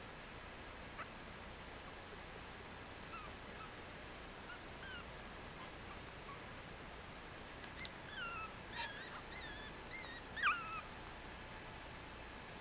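Eighteen-day-old Yorkshire terrier puppies squeaking and whimpering: short, high-pitched, falling squeaks, a few scattered at first, then a bunch of them in the second half, the loudest near the end.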